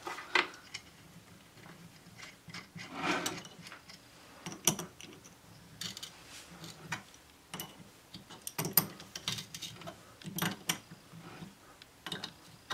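Steel hex nuts being run onto threaded studs on a cast-iron cylinder head and tightened with a small ratchet wrench: irregular metal clicks and short bursts of ratchet clicking.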